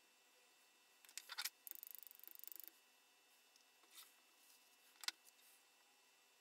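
Faint handling sounds: a few light clicks, then a quick, even run of small high taps for about a second as silver powder is tapped out of a small vial onto a lacquered rod's thread wrap, followed by two single sharp clicks.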